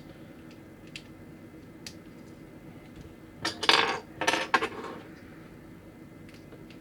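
Small hard plastic model-kit parts being handled: a few light clicks, then a cluster of clicking and rattling from about three and a half to five seconds in.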